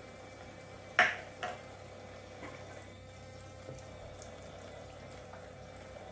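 Battery-powered toy kitchen sink running, its small pump keeping a thin stream of recycled water flowing from the faucet. There is a sharp clack about a second in and a lighter one just after, as toy dishes are handled.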